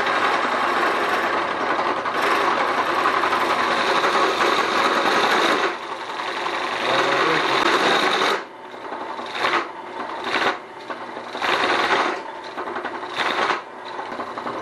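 Drill press boring into a log with a 4-inch Forstner bit under heavy load, a test of whether the drive holds torque now that the loose pulley has been tightened. The cut runs loud and unbroken for about eight seconds, then comes in short spells as the bit is eased in and out of the hole.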